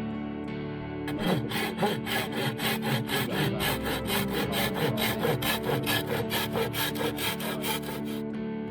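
Hand saw cutting through wood in quick, even strokes, about four a second, starting about a second in and stopping near the end, over soft guitar background music.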